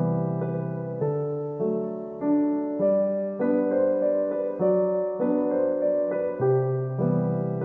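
Background piano music: a gentle piece of struck notes and chords that change about every half-second to second.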